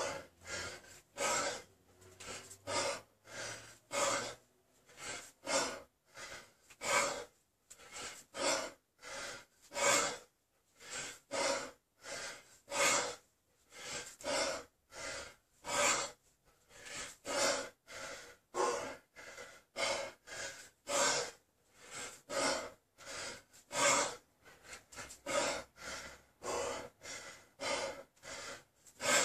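A man breathing hard and fast in short, regular gasps, about one and a half breaths a second, while doing kettlebell snatches. This is the laboured breathing of heavy exertion near the end of a long 32 kg snatch set.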